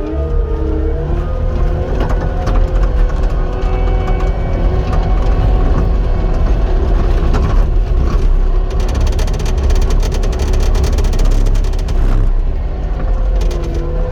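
Cat 259 compact track loader's diesel engine running under load, with a hydraulic whine that slides up and down in pitch as the machine works. A dense rattling clatter from the machine comes in about two-thirds of the way through and stops a few seconds later.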